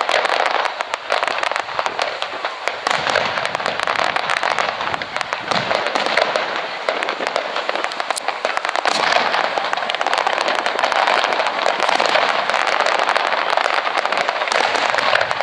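Fireworks display with many shells bursting at once, a dense, continuous rattle of rapid pops and crackles without let-up.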